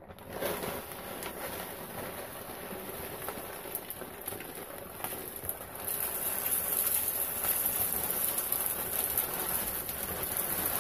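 Granular pillar candle wax pouring from a plastic bag into a metal wax melting pot: a steady hiss of small grains pattering on metal, growing louder about six seconds in.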